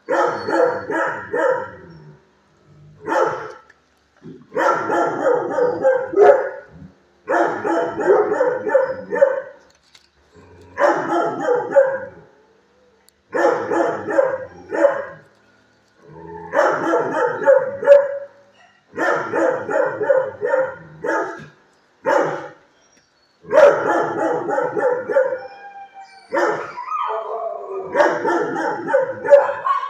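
Dogs barking loudly in repeated volleys, about a dozen bursts of a second or two each with short pauses between.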